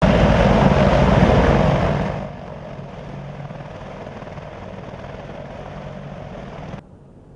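AH-64D Apache Longbow helicopter's rotor and turbine engines running, loud at first, then dropping abruptly about two seconds in and again near the end.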